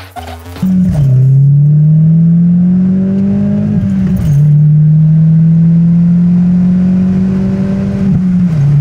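Opel Corsa D GSI's turbocharged 1.6-litre four-cylinder accelerating through the gears, with the front catalytic converter swapped for a high-flow metal-core cat. The revs climb steadily in each gear and drop sharply at three upshifts: about a second in, around four seconds in, and near the end.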